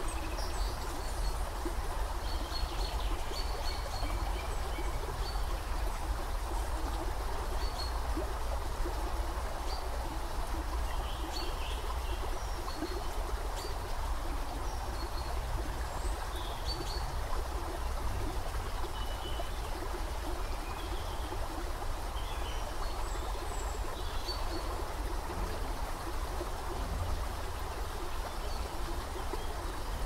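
Small shallow stream trickling steadily over a muddy bed, with a low rumble underneath. Short bird chirps come and go throughout.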